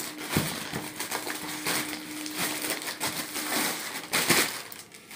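Plastic courier bag crinkling and rustling in irregular bursts as a cardboard shoe box is pulled out of it, busiest about four seconds in.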